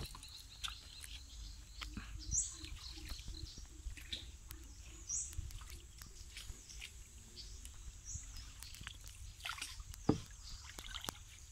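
Wooden hand paddle dipping and water sloshing and dripping around a small rowboat, with splashes near the end. A bird gives a short, high rising call about every three seconds.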